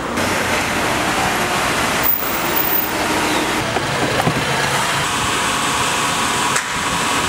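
Steady road traffic noise from passing vehicles, with a faint steady whine running through it. The noise dips briefly about two seconds in and again near the end.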